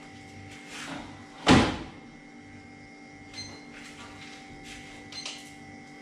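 A single heavy thump about one and a half seconds in, as the catch is set down to be weighed, then a few light clicks over a steady electrical hum.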